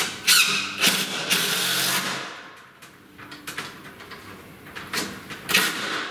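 DeWalt cordless driver running in short spurts, driving Torx wood screws through a ceiling fan bracket and a plastic electrical box into the ceiling joist, with sharp clicks and knocks from the bracket and box in between.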